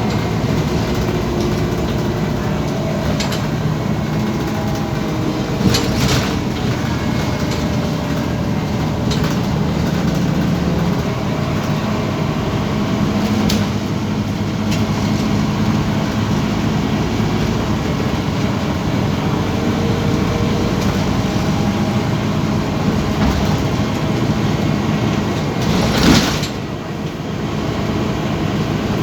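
Scania OmniCity city bus heard from inside the cabin: a steady diesel engine and road rumble, with scattered rattles and knocks and one short, loud burst of noise near the end.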